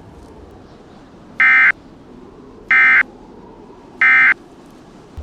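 Emergency Alert System end-of-message signal: three short, identical electronic data bursts, about a second and a quarter apart, over a faint hiss. This is the EOM code that closes an alert broadcast.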